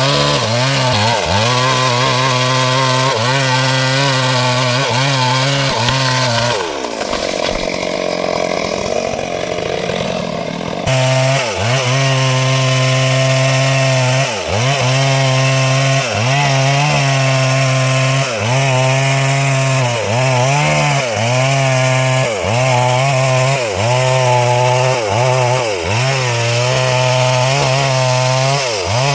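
Stihl MS 382 two-stroke chainsaw cutting wood at full throttle, its pitch sagging and recovering about once a second as the chain bites into the cut. About a quarter of the way in, the engine drops off for a few seconds, then comes back suddenly at full speed.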